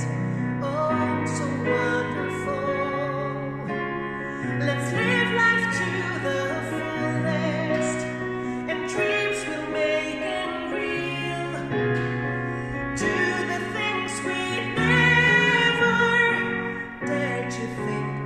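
A woman singing a slow, tender ballad with vibrato over piano accompaniment.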